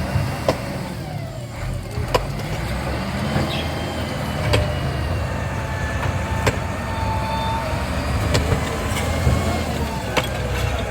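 Heavy machine's engine running steadily, with repeated sharp knocks and clatter and a thin whine that drifts slowly up and down in pitch.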